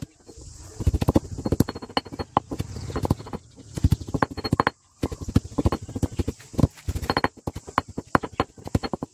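Stone pestle pounding Siamese cassia leaves in a stone mortar: rapid thuds, about four or five blows a second, with a brief pause near the middle. The leaves are being crushed to a wet green mash.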